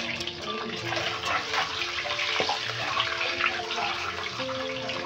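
Peeled boiled eggs frying in hot oil in a steel kadhai: a dense crackling sizzle, busiest in the middle.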